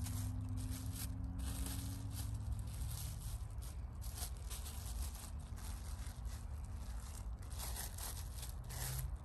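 Irregular rustling and crinkling as soil is scooped up and packed around a girdled ambarella branch to form an air-layering root ball.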